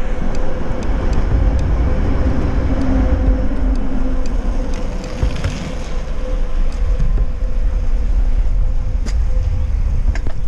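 Wind buffeting the microphone of a bicycle-mounted camera while riding, a steady low rumble with tyre noise and scattered small clicks and rattles from the bike.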